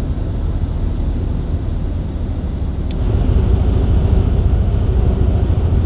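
Toyota Tacoma pickup driving, heard from inside the cab: a steady low rumble of road and engine noise that grows louder about three seconds in.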